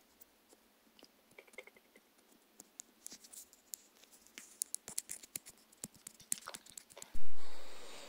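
Close-up handling of a furry microphone windscreen and a tealight's thin metal cup: sparse soft ticks, then a dense run of crackly scratching as fingertips rub the windscreen. About seven seconds in comes a loud, muffled thump from the microphone being touched.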